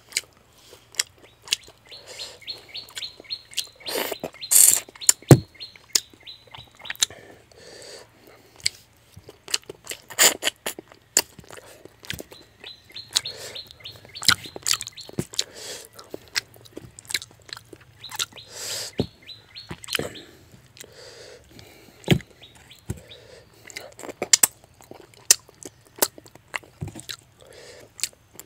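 Close-up mouth and hand sounds of fish head curry and rice being eaten by hand: wet chewing, lip smacks and sharp clicks throughout. Twice, a few seconds in and again about halfway through, a bird calls in a quick run of repeated chirps in the background.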